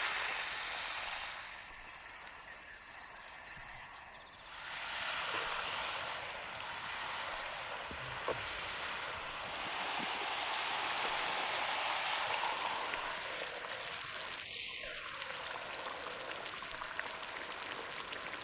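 Steak sizzling in butter in a skillet: a steady hiss of frying fat, quieter for a couple of seconds early on, then steady again. A brief falling squeak comes about three-quarters of the way through.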